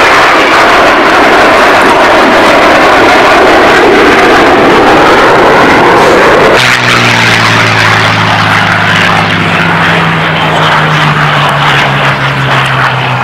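Avro Vulcan bomber's four Olympus jet engines making a loud, steady rush of jet noise as it passes overhead. About six and a half seconds in, the sound switches abruptly to the steady low drone of a propeller aircraft's engine, its pitch sinking slightly.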